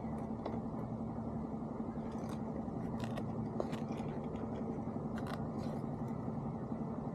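Scattered light clicks and scrapes of hands working a lure and hook free of a trout in a rubber landing net, over a steady low hum.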